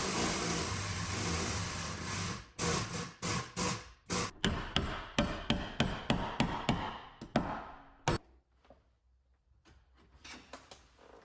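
Hammer blows on a car body panel during collision repair: a steady run of strikes, about two or three a second, ending in one hard blow, then a few light taps. Continuous rasping, like filing or sanding, comes before the hammering starts.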